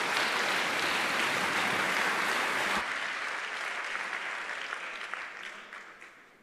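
Audience applause in a large hall, dense at first, dropping sharply about three seconds in and then dying away into scattered claps.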